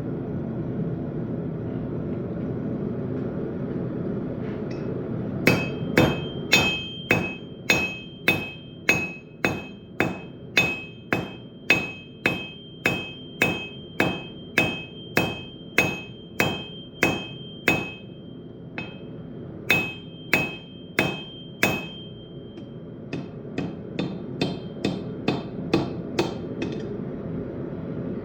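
Hand hammer beating steel on an anvil while forging a railroad-spike knife. The blows come about two a second, each with a bright ringing note from the anvil, and give way to lighter, fainter taps with little ring near the end. Before the hammering starts, about five seconds in, there is a steady low rumble.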